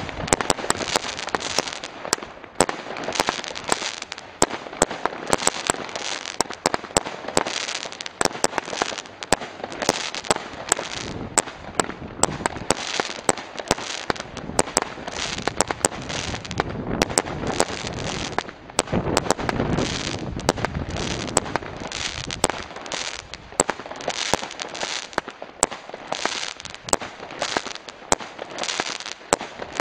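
Two Weco consumer firework cakes, 25 Carat and Ipanema, firing together. Sharp bangs come thick and fast over dense crackling, with no pause.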